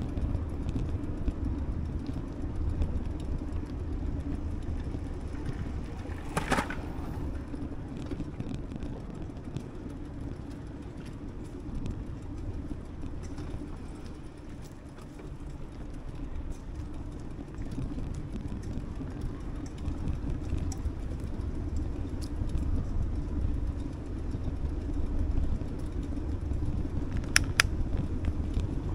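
Steady low rumble of a bicycle rolling over brick paving. There is a single knock about six seconds in and a pair of sharp clicks near the end.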